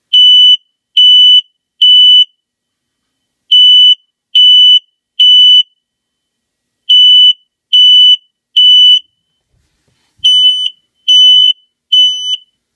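A second-generation 1275 smoke alarm sounding its code 3 (temporal-3) alarm pattern. It gives loud, high-pitched beeps in groups of three, each beep about half a second long, with a pause of about a second and a half between groups, four groups in all.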